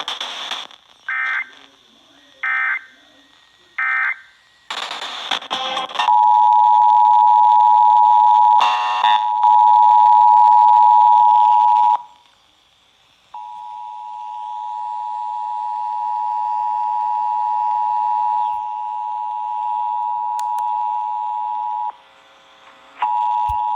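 Emergency Alert System broadcast heard through an FM radio. Three short data bursts of the SAME header come first, then bursts of static. Then the steady two-tone EAS attention signal sounds for about six seconds and cuts off, sounds again for about eight seconds starting quieter, and starts once more near the end.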